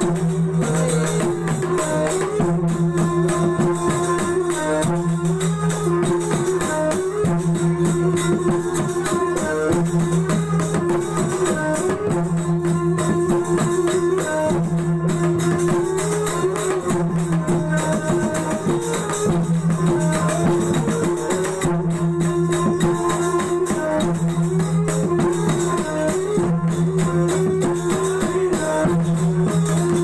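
Sasak cilokak music played by a children's ensemble: two-headed gendang hand drums beat a steady rhythm under a large hanging gong, with jingling small cymbals and a repeating melody over a held low tone.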